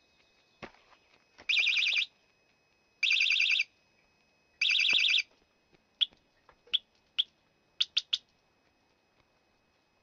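Vibration-activated bicycle security alarm sounding three loud, short warbling bursts about a second and a half apart, after a single knock. Six short, high beeps at uneven spacing follow.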